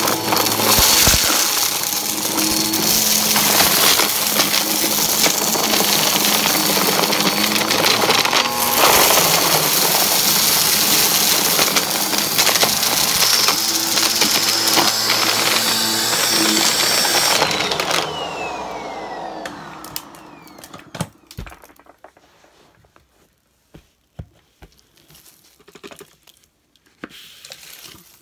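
Upright vacuum running on carpet, sucking up a pile of hair, coins and small pellets with a crunchy, gritty crackle and rattle. About 17 seconds in the motor is switched off and winds down with a falling whine. Only scattered clicks and rustles follow, then debris tumbling out near the end.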